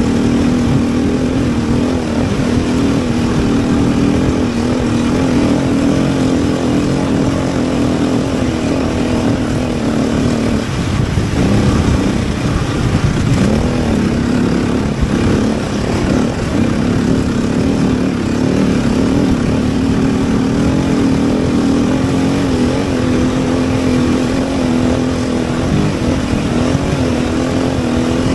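Vehicle engine running steadily under way, with road and wind noise, a constant drone that breaks off and changes pitch briefly about eleven seconds in before settling again.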